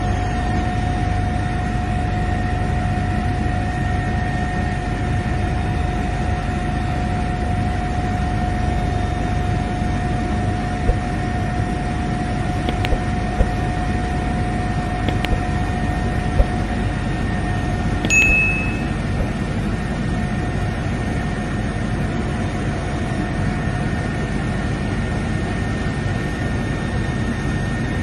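Steady low engine rumble with a steady whine that fades out about two-thirds of the way through, and a few light clicks in the middle.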